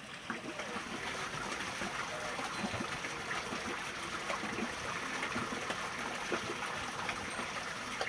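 Running water trickling and splashing in a steady stream, the flow that turns a water-powered Buddhist prayer wheel.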